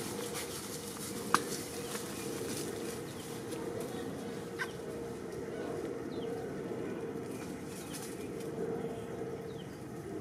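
Short animal calls over a steady outdoor background drone: one sharp, brief call about a second and a half in is the loudest, a fainter one follows around four and a half seconds, and a couple of quick high calls come later.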